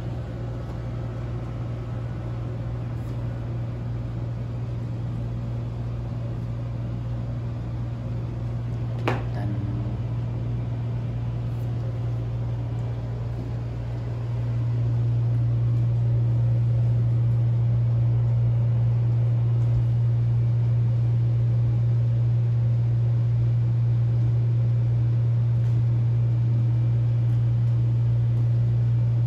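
A steady low hum, stepping up in loudness about halfway through, with a single sharp click a third of the way in.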